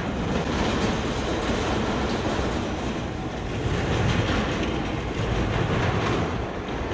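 E&F Miler Hi-Miler steel family roller coaster train running along its steel track: a steady rumble and clatter of wheels.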